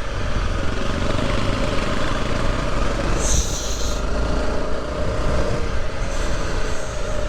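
Motorcycle engine running steadily under way, with wind noise on the microphone. A brief high-pitched squeal sounds about three seconds in.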